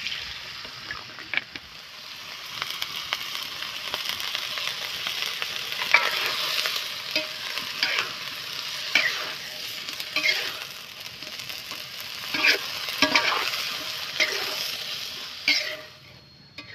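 Lotus stems sizzling as they stir-fry in a wok, with a metal spatula scraping the pan about once every second or so. The frying stops near the end.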